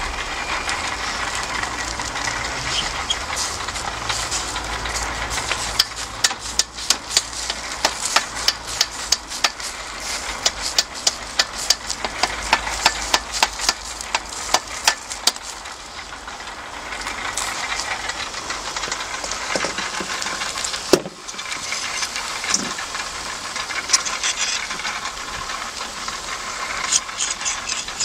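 Hiss and crackle of chicken juices and fat dripping onto hot barbecue charcoal, with a dense run of sharp clicks and metal-on-metal scraping as chicken pieces are pushed off the rotisserie skewers with a fork.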